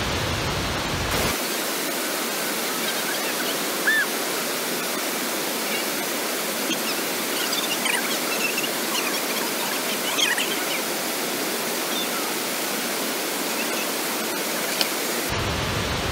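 Whitewater rushing over river falls and rapids: a loud, steady, even rush of water with no pauses.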